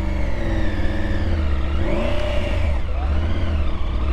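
Triumph Tiger 1200 Rally Pro's three-cylinder engine revving as the heavy adventure bike pulls away over loose rocky ground. The engine note swells and falls, rising most about halfway through, over a steady low rumble.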